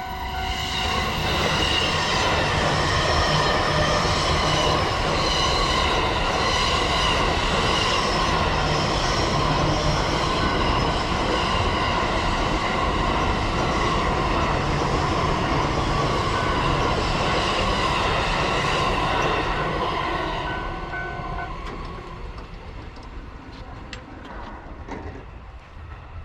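A Joban Line train passing over a railway level crossing, loud for most of the pass and fading away after about twenty seconds. The crossing's steady two-tone warning signal is heard at the start and again late in the pass, and cuts off about twenty-one seconds in.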